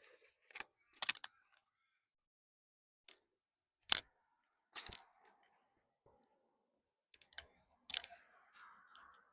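A handful of separate sharp knocks and clicks with near silence between them; the loudest comes about four seconds in, and a cluster comes near the end.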